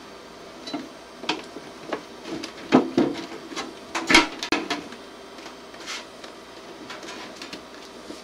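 Galvanized sheet-metal duct being worked by hand, its end edges bent over to take a C-cleat: irregular metallic clanks and creaks, the two loudest a little before the middle.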